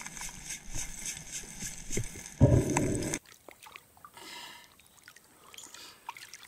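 Underwater sound from a camera held down in a shallow river: faint clicking and crackling as a gloved hand sifts through gravel, then a loud low rush of water for under a second. After a cut it drops to quiet sloshing of water around a snorkeler at the surface.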